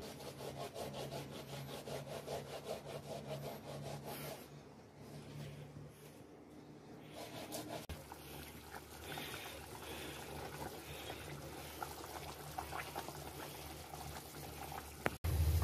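A pot of stew in broth being stirred with a metal slotted spoon in an aluminium pot: liquid sloshing and simmering, with a few faint clicks of the spoon against the pot in the second half.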